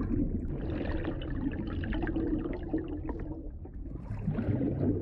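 Water splashing and trickling over shore rocks, a steady noisy wash that dips a little about three and a half seconds in.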